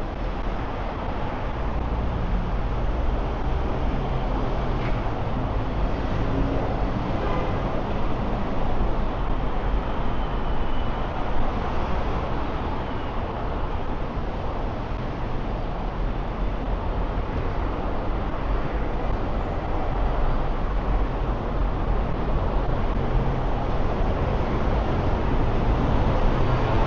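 Steady city street traffic: cars and buses passing with a continuous low rumble of engines and tyres, growing a little louder near the end.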